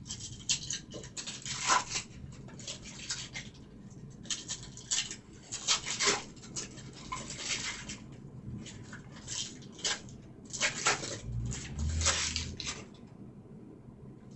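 Trading-card packs and cards being handled: irregular crinkling, rustling and clicking, a few sharp bursts a second with short gaps between.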